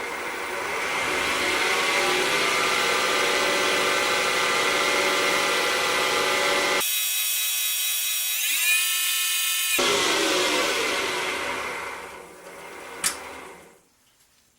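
Wood lathe spinning a pen blank while finish is worked into it, its motor whine steady with a stretch in the middle where the pitch rises. It then winds down over the last couple of seconds, with one sharp click just before it goes quiet.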